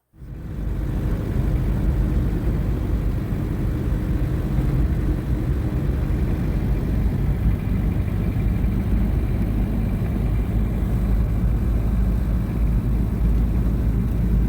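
Diesel Land Cruiser driving, a steady low engine and road rumble.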